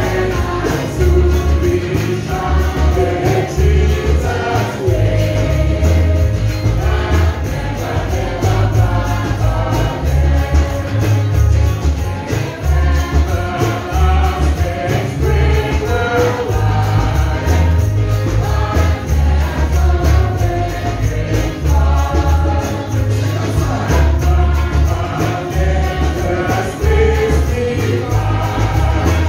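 Live gospel song amplified through a PA: singers on microphones lead, with a choir or congregation, over a band with a heavy, pulsing bass line and jingling tambourine.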